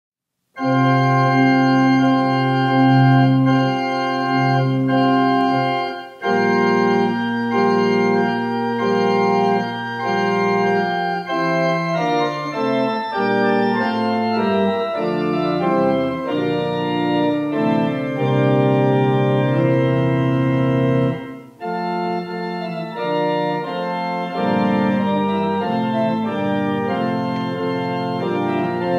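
Organ playing slow, sustained chords that change in phrases. It begins about half a second in, and the sound briefly breaks between phrases about six seconds in and again about twenty-one seconds in.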